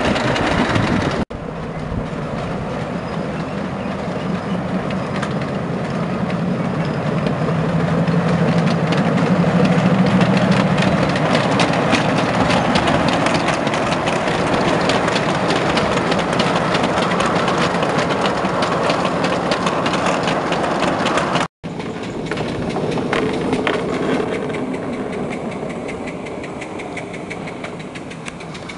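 Miniature railway train running on its track, its wheels clicking rapidly over the rail joints under a steady running hum, broken off briefly twice.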